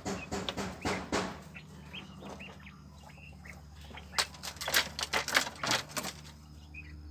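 Quails scratching and pecking in wood-shaving litter, making a run of clicks and rustles that thickens about four seconds in, with a few faint short chirps, over a low steady hum.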